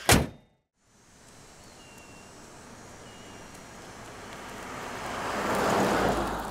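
A car hood slammed shut with one sharp bang. Then the 1972 Lincoln Continental Mark IV with its 460 V8 drives toward and past, its tyre and engine noise swelling steadily to a peak about six seconds in.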